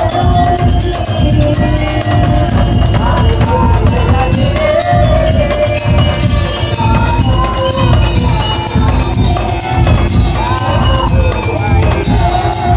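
Live daul music from a Madurese percussion troupe: dense, fast drumming with jingling percussion on top and a gliding melody line running over it.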